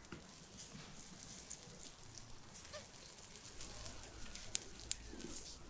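Whole pig roasting on a spit over a charcoal fire: fat and skin crackling and spitting in light irregular ticks, with two sharp pops close together near the end.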